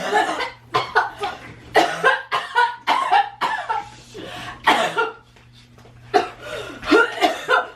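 A person coughing in a run of repeated fits, staged for a fake-blood coughing prank. The coughs ease off about five seconds in, then start again near the end.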